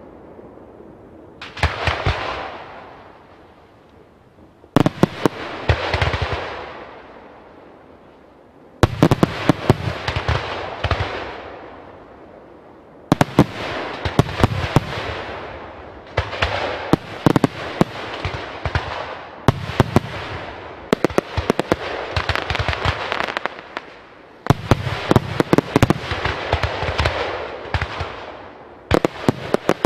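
Fireworks display: aerial shells bursting in quick succession with loud bangs, each followed by a fading crackle and hiss, in salvos every few seconds.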